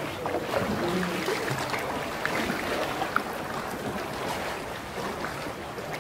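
Water lapping and splashing around a sea canoe as it is paddled along, a steady wash with small drips and ticks.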